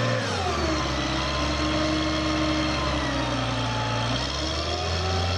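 Mobile truck crane's diesel engine running steadily at low revs, its pitch sagging slightly about half a second in and rising a little near the end.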